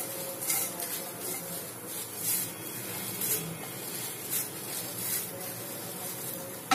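Dry flattened rice (poha) flakes rustling and sliding off a glass plate into a dry, hot nonstick pan as a wooden spatula pushes them, in a series of short, soft swishes.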